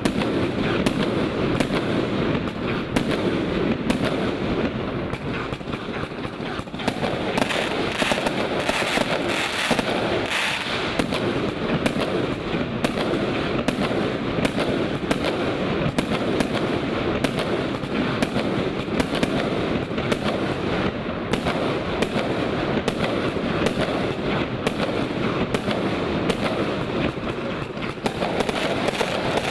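A 116-shot category F3 fireworks cake firing in a rapid, unbroken volley, with shot after shot launching and bursting many times a second.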